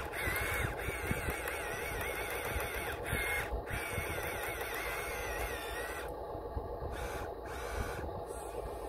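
Electric motor whine of a Huina RC excavator working its arm, wavering up and down in pitch in stretches of a few seconds, breaking off about six seconds in with a couple of short blips after.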